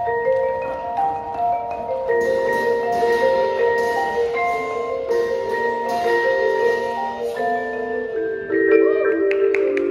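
Indoor percussion ensemble playing: marimbas and vibraphones sounding overlapping, ringing mallet notes. Sharp higher strokes join about two seconds in, and a quick cluster of strikes comes near the end.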